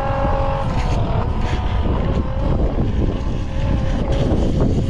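Milwaukee battery-powered transfer pump starting up: its motor whine rises in pitch in the first moment, then runs steady. Heavy wind rumble on the microphone underneath.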